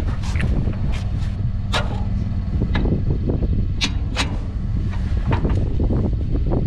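Sharp metal clinks and clanks from hitching a trailer: the tongue jack's crank turning, and the coupler, safety chains and cable being hooked at the pickup's hitch. They come over a steady low rumble of the pickup idling.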